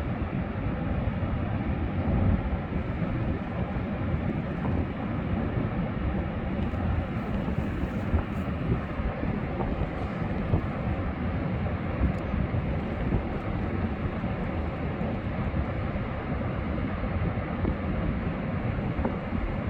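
Ocean surf and wind: a steady rushing noise, heaviest in the low end, with no single wave breaks standing out.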